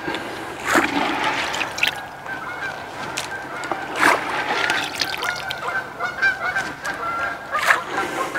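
Handfuls of hemp and corn bait thrown by hand splashing into the lake, about four splashes, the loudest about a second, four seconds and nearly eight seconds in. A bird calls repeatedly in the background.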